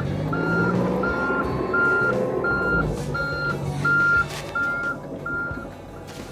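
John Deere mini-excavator's travel alarm beeping evenly, about one beep every 0.7 s, over the running engine and the hydraulics working.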